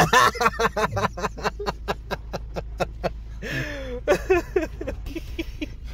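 Men laughing in quick repeated bursts, about four a second, inside a car's cabin over the steady low rumble of the engine and road.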